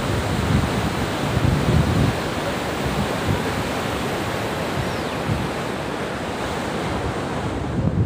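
Fast muddy flash-flood water rushing down a stream channel: a loud, steady rushing noise with an uneven low rumble.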